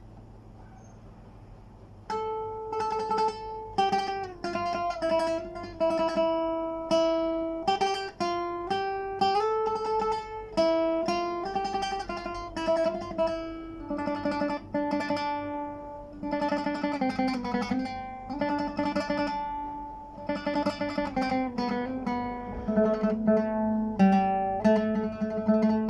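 A plucked string instrument played solo: after a near-quiet start, a melody begins about two seconds in, picked note by note with occasional strummed chords. It is the instrumental opening of a traditional Sudanese song.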